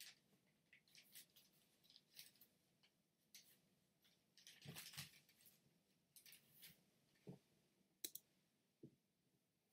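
Sheet of origami paper rustling and crinkling in short, faint bursts as it is pinched and shaped by hand, with a sharp click about eight seconds in.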